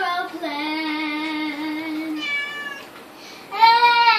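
Young child singing in long held, opera-style notes: one long steady note, a brief high note, then a louder falling note near the end.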